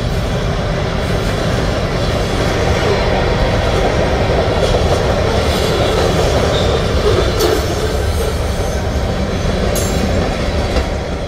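Freight train cars (covered hoppers and tank cars) rolling past with the steady noise of wheels on rail, and a few sharp clicks later on.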